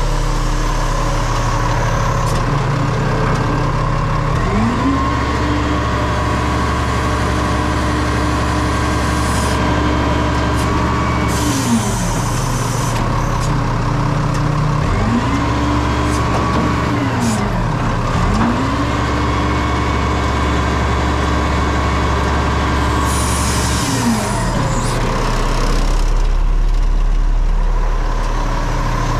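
Roll-off garbage truck's diesel engine revving up and holding a raised speed three times, dropping back to idle in between, as it drives the hydraulic hoist. Short hisses come near the middle and near the end of the last rev.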